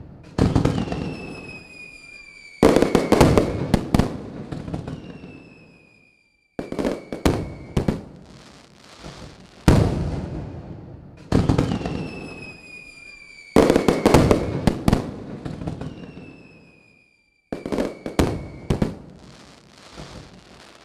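Fireworks display: a run of loud bangs, each trailing off over a second or two, with bursts of crackling between them and several whistles that slowly fall in pitch.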